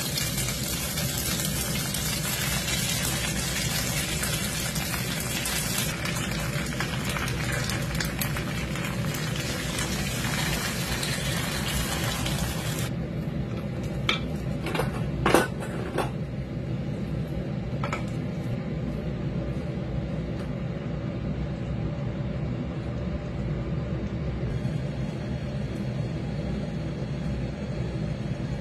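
Glass noodles and ginger slices sizzling in hot oil in a clay pot, a steady hiss that cuts off suddenly about halfway through. Then a low rumble of water heating in the pot over a gas flame, with a few sharp clicks and clinks as clams are dropped in by hand.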